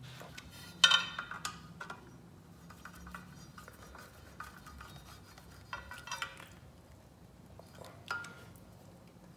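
Screwdriver tightening steel bolts into a rowing machine's metal foot bracket: scattered metallic clinks of the tool and hand on the bolts and frame. The sharpest clink comes about a second in, with a few more near six and eight seconds.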